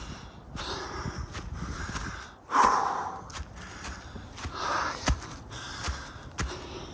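A hiker breathing hard while walking uphill, with heavy breaths about once a second and the loudest exhale about two and a half seconds in. Footsteps on the icy trail make scattered sharp crunches under the breathing.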